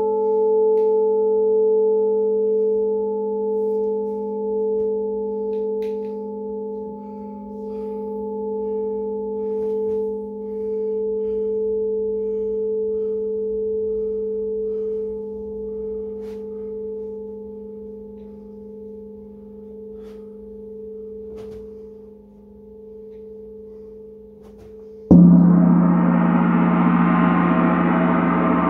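A lingering metallic ring of a few steady tones slowly fades, with a few faint clicks. About 25 s in, a large Paiste gong is struck with a soft mallet and blooms into a loud, dense, sustained wash.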